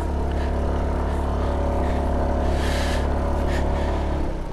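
Scooter's single-cylinder engine running steadily under load as it climbs a loose gravel track, with a low drone and road noise; the note drops away shortly before the end.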